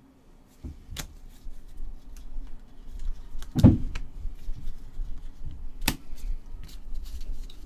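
Gloved hands handling a stack of Bowman baseball cards: scattered clicks and flicks of card stock, with a louder dull thump about midway and another sharp click later on.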